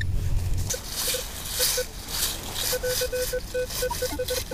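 Minelab Equinox 600 metal detector sounding short, low-pitched target beeps at irregular intervals as its coil sweeps the ground, coming thickest just after the middle. Scratchy noises run underneath, and a low rumble fills the first moment.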